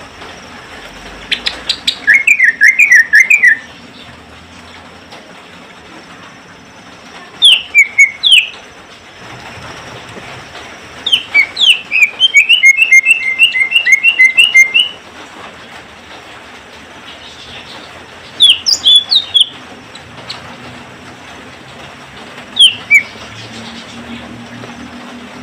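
Cucak ijo (green leafbird) singing in five short bursts of rapid, repeated chirping notes with pauses between them. The longest phrase starts about eleven seconds in and lasts nearly four seconds.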